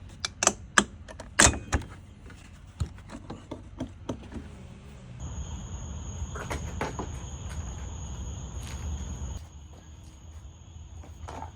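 Sharp plastic clicks and knocks as the Jeep Wrangler's grille is worked free of its push-in clips and pulled off. From about five seconds in, crickets chirp steadily in a high, thin trill, stopping a couple of seconds before the end.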